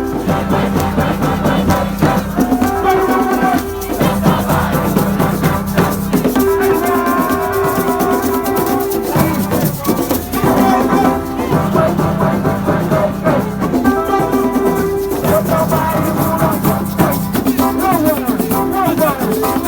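Music with a shaker rattling throughout over a drum beat, and held, sliding melody notes on top.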